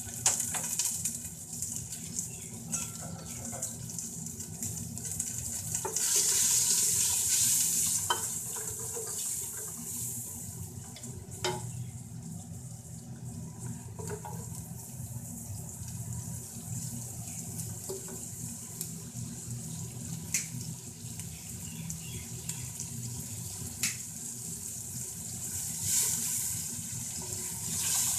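Sliced onions frying in oil in a steel pressure-cooker pot as they are browned: a steady sizzle that swells about six seconds in and again near the end, with a few light clicks as they are stirred with a wooden spoon.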